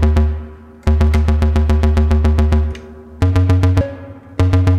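Modular synthesizer voice ratcheting: bursts of rapidly repeated bass notes, each burst opened by a gate, with MATHS cycling to retrigger the notes. The first long burst repeats about seven or eight times a second; from about three seconds in, shorter bursts repeat faster at a different pitch, as a new cycle time is selected from the Pressure Points pads.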